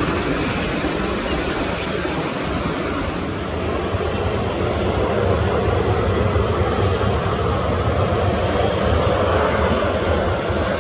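Twin jet engines of a China Airlines Boeing 737-800 as the airliner taxis close past, giving a steady rushing engine noise over a low rumble. The noise grows louder about halfway through.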